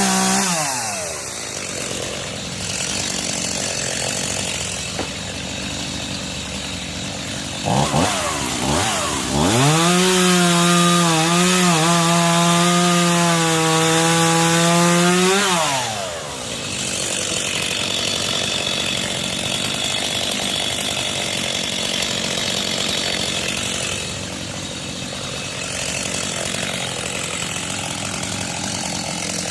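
Chainsaw cutting wood. It runs at full throttle at the start and drops back within a second, then revs up again about eight seconds in and holds high revs with small dips under load for about six seconds. It drops back again and keeps running more quietly to the end.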